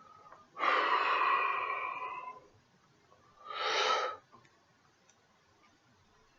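A person breathing heavily: a long breath lasting nearly two seconds, like a sigh, then a shorter breath about a second later.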